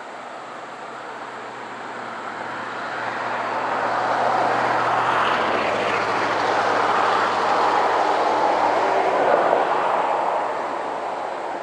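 A vehicle passing by: rushing noise that swells over a few seconds, holds, then fades near the end, with no siren tone in it.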